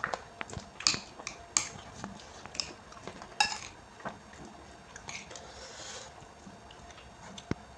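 Eating utensil clicking and scraping against a dish of instant noodles with raw bean sprouts, in irregular sharp clicks, with a few short hissy eating noises between them.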